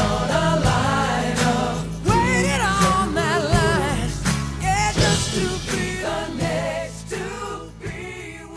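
Pop song with singing over a steady beat, fading out toward the end.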